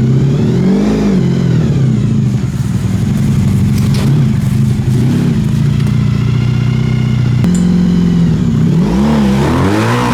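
Honda VF1000 V4 motorcycle engine in a home-built dune buggy, running steadily and revved up and back down a few times. With a fresh CDI fix it now fires on all four plugs and sounds much better running.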